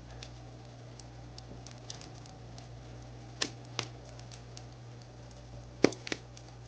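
Wood fire crackling: irregular small ticks with a few louder pops, the loudest about six seconds in, over a steady low hum.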